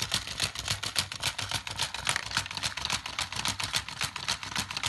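Battery-powered Chubby Puppies Dalmatian toy clicking rapidly and evenly as its motorised legs waddle it along, about ten clicks a second.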